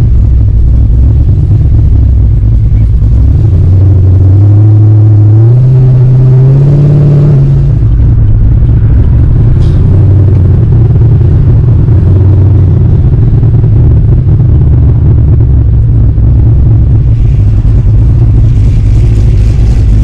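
Chevrolet Camaro V8 with long-tube headers, heard from inside the cabin while driving: the engine pulls up in revs for a few seconds about a fifth of the way in, then drops back and runs at a steady cruise.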